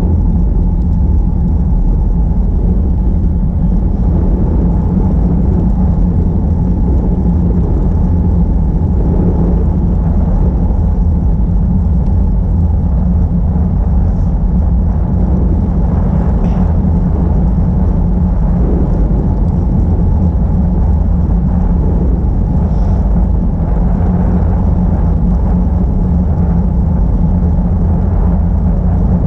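Steady wind rush and buffeting on the microphone of a camera riding on a moving bicycle, a loud low rumble mixed with tyre noise on the asphalt road.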